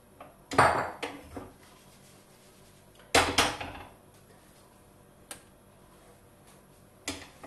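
Kitchen pan and utensils clattering and knocking in two short bursts, about half a second in and again about three seconds in, with a couple of lighter knocks later.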